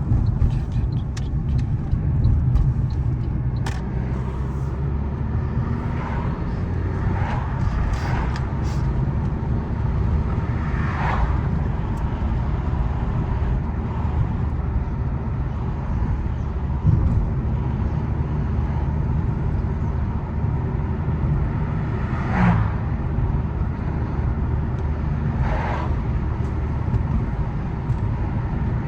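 A 2014 Fiat 500L on the move: steady low road and engine rumble, with a few short, higher-pitched sounds coming and going over it.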